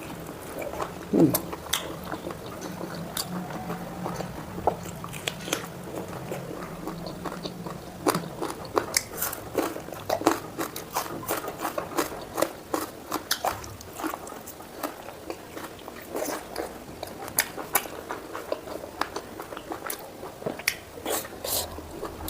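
Close-up mouth sounds of a person eating pork curry: chewing and biting with many sharp, irregular wet clicks and crunches. A low steady hum runs under the first eight seconds or so.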